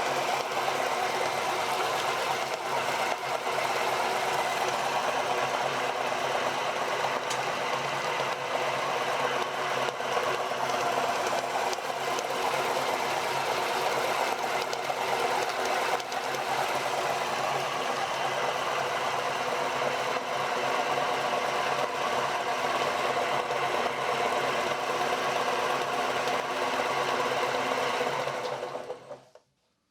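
Electric meat grinder motor running steadily under load, grinding ice cream, then cutting off near the end.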